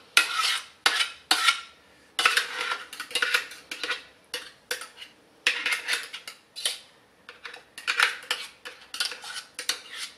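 A utensil repeatedly scraping and clinking against a stainless steel mixer jug as thick fish purée is scraped out of it, in an irregular series of short scrapes and knocks.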